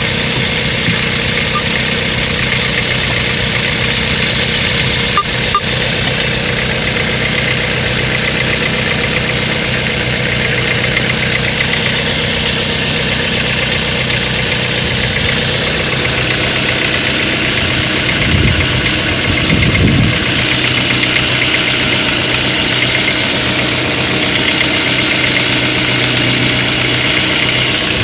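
Mitsubishi Lancer X's 1.5-litre four-cylinder petrol engine idling steadily with a knock in the engine. The low rumble swells briefly about two-thirds of the way through.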